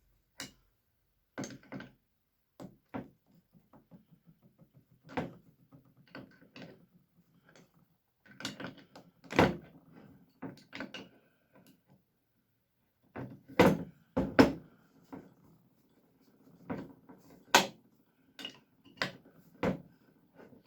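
Irregular knocks and metal clinks of wrenches and heavy metal parts being handled and fitted on a one-inch impact wrench, the loudest knocks about halfway through and around two-thirds in.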